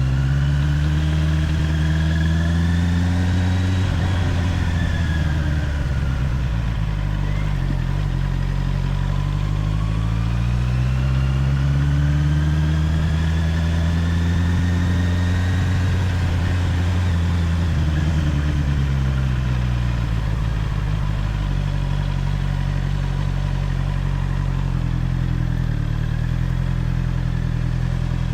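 Honda CBR650R inline-four engine on its stock exhaust, rising in pitch and easing off twice, then running at a steady pitch.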